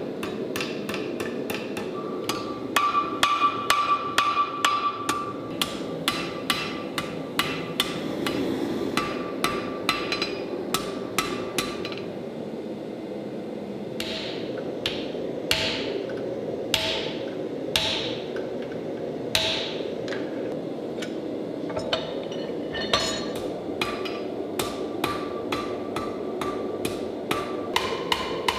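Blacksmith's hammer striking hot Damascus steel on an anvil, forging out the fork tines: runs of quick, uneven blows with a ringing note, and a slower stretch of single heavier blows in the middle, over a steady rushing background.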